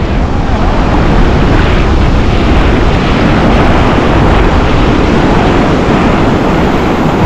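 Ocean surf washing and breaking around a wader's legs, with wind buffeting the microphone: a loud, steady rushing noise with a deep rumble underneath.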